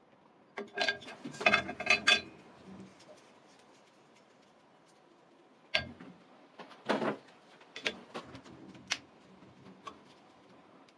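Workbench handling sounds as wooden knife-handle scales are clamped onto a steel tang with a steel bar clamp: a quick run of metal clinks that ring briefly, about a second in, then a few scattered knocks and a short clatter.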